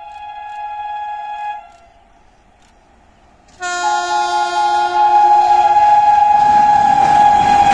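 WAP-7 electric locomotive's two-tone horn sounding: one held blast fades out about a second and a half in, then after a short pause a second, louder long blast starts abruptly and is held. In the last second or two the rumble of the approaching train grows underneath it.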